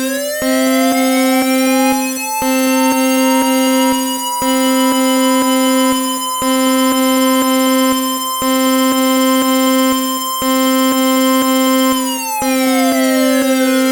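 Synthesized emergency-alert siren, the attention signal of an Emergency Alert System broadcast: a low buzzing drone that breaks off briefly every two seconds, under a higher tone that glides up to a held pitch and slides back down near the end.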